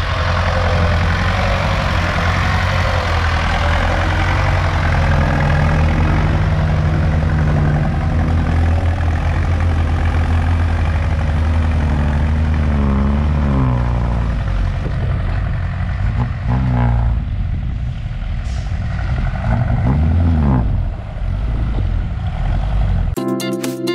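Ford Seree farm tractor's diesel engine running loud under load as it pushes dirt, its pitch rising and falling several times in the second half as the throttle is worked. Music starts at the very end.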